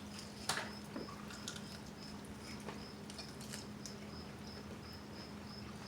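A few sharp clicks and taps of eating, the loudest about half a second in, over a steady low hum and insects chirping regularly at a high pitch, about three chirps a second.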